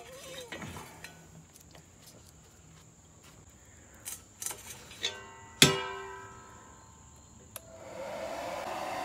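A stainless steel strainer basket clinks and scrapes against the cast-iron brake drum, with one sharp clang a little over halfway through that rings on for about a second. Near the end a hairdryer used as the forge blower starts up on low, a steady rushing of air into the coals.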